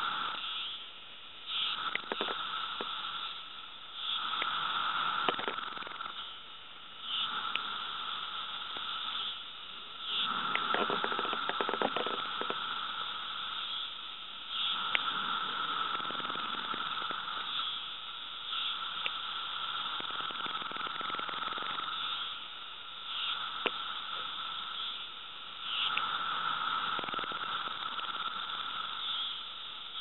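A male periodical cicada (Magicicada) buzzing loudly at close range, in spells of a few seconds that start and stop repeatedly, over a fainter steady chorus of other cicadas.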